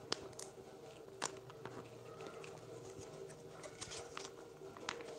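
Faint scattered clicks and rustles of a plastic mayonnaise pouch being picked up and handled, coming more often near the end, over a faint steady hum.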